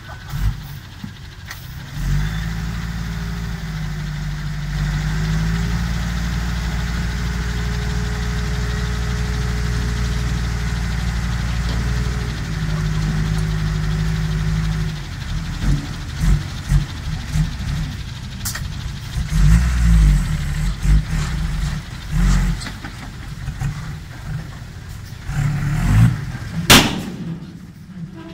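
Six-wheel dump truck's diesel engine held at steady raised revs for about thirteen seconds while the hydraulic hoist tips the loaded bed, then uneven surges of engine and low rumbling as the truck moves with the bed up and the soil slides out. A single sharp knock comes near the end.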